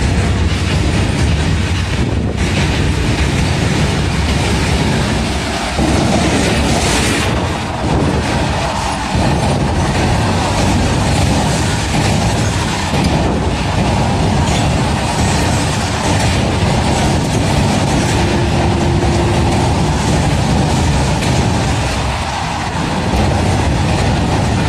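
Long freight train of covered goods wagons rolling past at speed: a loud, steady rumble with the clatter of wheels running over the rail joints.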